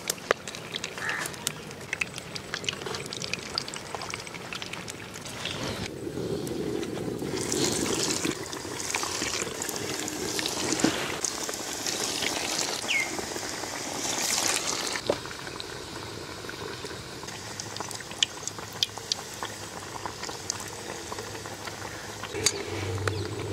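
Cooking oil in a kadai bubbling and hissing, with scattered sharp clicks and taps. The hiss grows louder and brighter from about six seconds in to about sixteen seconds in.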